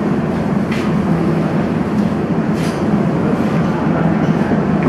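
Steady, loud rumbling background noise, with two brief sharp clicks about a second in and again nearly three seconds in.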